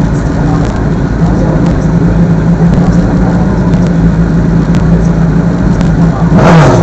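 Race car engine running steadily at a low idle. Near the end its note drops sharply, with a short loud burst of noise.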